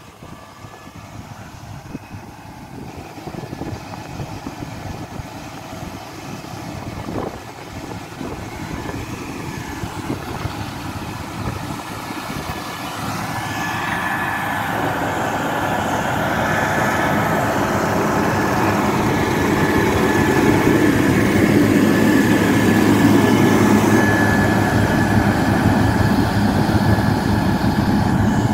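Caterpillar 120K motor grader's diesel engine running as the machine works the gravel road, growing steadily louder as it approaches and passes close by, with its blade scraping through the dirt and gravel. A steady high whine joins about halfway through.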